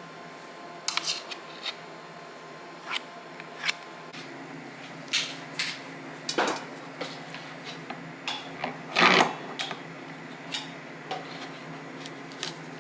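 Scattered clicks and knocks of kitchen utensils being handled, with a louder clatter about nine seconds in. A low steady hum comes on about four seconds in.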